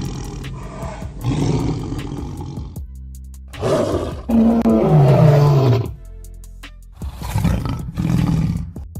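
A large animal roaring in several loud calls, the strongest about four to six seconds in with a low falling note, over background music.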